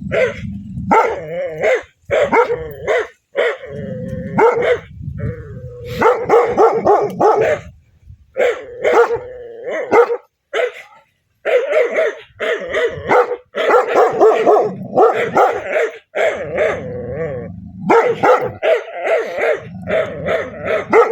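A dog barking aggressively in rapid runs of loud barks, with low growling between runs.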